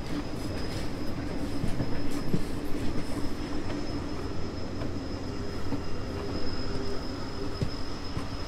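A moving train running steadily, with a continuous low rumble and a faint, steady high whine above it. Occasional light clicks from the wheels and track come through.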